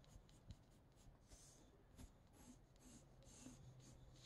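Faint scratching of a graphite pencil sketching on watercolour paper, a run of short, irregular strokes.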